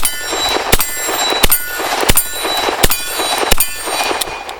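Colt Diamondback revolver, 4-inch barrel, firing .38 Special hand loads double action: a quick string of shots about 0.7 s apart, each followed by a ringing tail.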